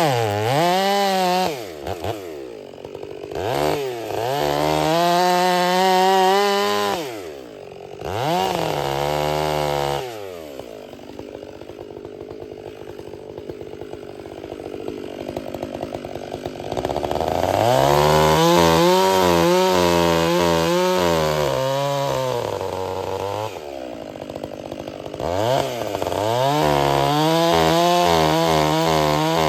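Stihl 500i chainsaw with a freshly hand-filed Oregon chain bucking wood: the engine revs up and holds under load in several cuts of a few seconds each, dropping back to idle between them, with a longer idle stretch in the middle.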